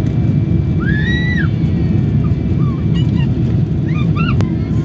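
Steady low rumble of a JAL jet airliner coming in to land, with a few brief high rising-and-falling calls over it about a second in and again near the end.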